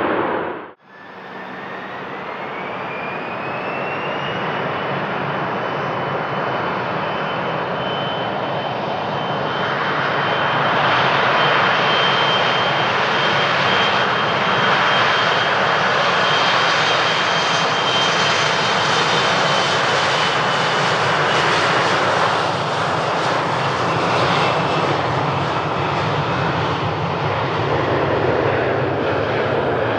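Embraer E175 regional jet's twin turbofan engines spooling up to takeoff power: a whine rises over a few seconds and then holds at a steady high pitch, under a broad rushing engine noise that grows louder as the jet accelerates down the runway toward liftoff.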